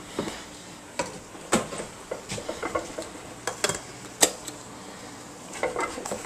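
Scattered light knocks and clatters of a rice cooker's inner pot and lid being handled on a kitchen counter, with one sharper knock a little after four seconds in.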